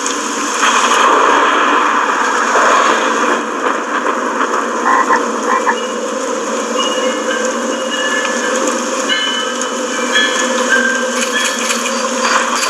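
Water splashing and pattering steadily, like watering cans sprinkling and rain falling on flowers. A few short high notes sound over it from about halfway through.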